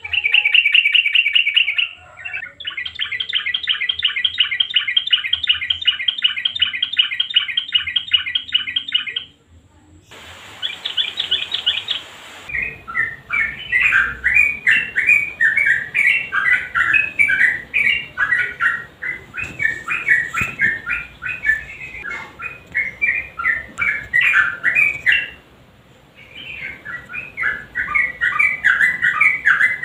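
Yellow-vented bulbul (trucukan) singing: long, fast rattling trills in the first nine seconds and another short trill a little after ten seconds, then a run of quick, varied chirping phrases that break off briefly near the end before resuming.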